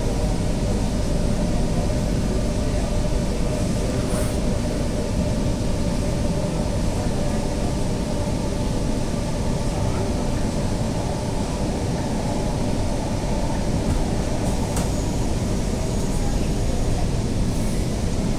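Kochi Metro train running steadily on an elevated viaduct, heard inside the car: a constant low rumble of wheels on rail with a steady hum, and a few faint ticks.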